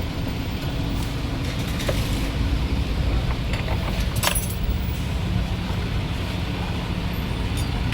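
Steady low rumble of motor vehicle engines, with a few light metallic clinks, the clearest about two seconds and about four seconds in.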